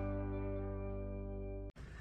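Background music: a held chord slowly dying away, cut off abruptly near the end.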